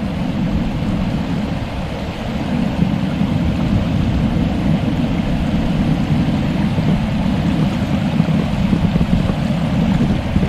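Steady rushing noise of a flowing mountain stream, even throughout and heaviest in the low range.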